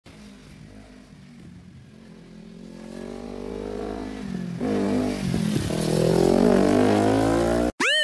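Kawasaki Z250 motorcycle engine revving, growing steadily louder and rising in pitch, dipping briefly about five seconds in before climbing again. It cuts off suddenly just before the end.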